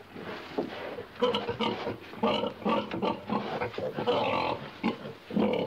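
A pig grunting over and over in short, rough grunts, roughly one or two a second, some coming in quick pairs.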